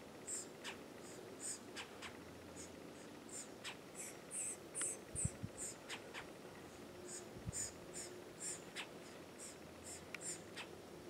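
Red-bellied woodpecker fledglings in the nest cavity making short, high-pitched calls, faint and repeated about two or three times a second.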